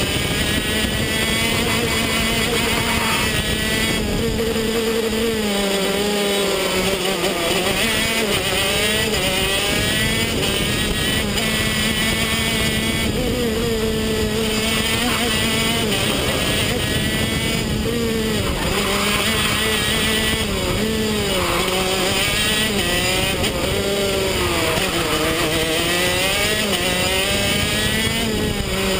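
125 cc two-stroke KZ shifter kart engine heard onboard at racing speed, its pitch climbing as it accelerates and dropping sharply every few seconds as it brakes and shifts down for the corners.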